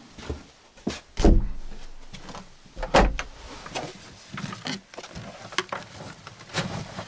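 Handling noises: objects being picked up and set down, a series of knocks and clatters with the loudest thumps about a second in and about three seconds in.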